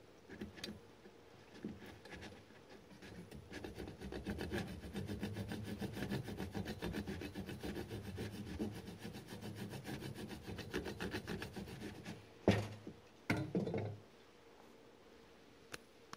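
A kitchen knife sawing back and forth through pan-browned bread on a wooden cutting board, in a long run of rapid, even strokes. Near the end come two sharp knocks.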